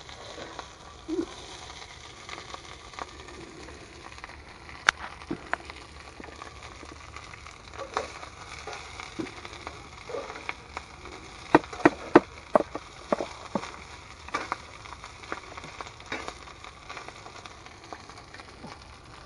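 Rice frying in a wok over a gas camp stove: a steady sizzle with scattered crackles and sharp clicks, coming in a quick run about twelve seconds in.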